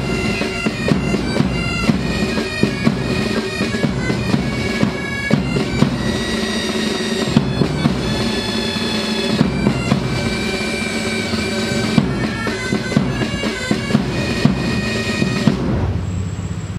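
Pipe band playing: bagpipes sounding a tune over their steady drone, with regular drum beats. The music stops about a second before the end.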